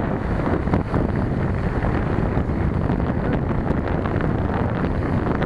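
Wind buffeting the microphone of a camera on a moving bicycle, a steady low rumble, with bicycle tyres rolling over a gravel towpath and small knocks and rattles from the ride.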